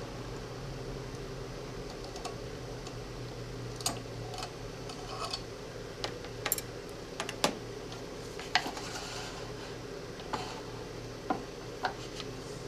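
Light metallic clicks and clinks, about ten scattered through the middle, as pistol parts are handled on a rotating pistol stand, over a steady low hum.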